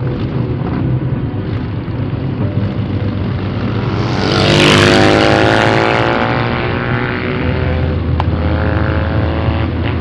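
Motorcycle engines running under way in a group ride, a steady low drone. About four seconds in the engine sound swells and is loudest for roughly two seconds, then settles back.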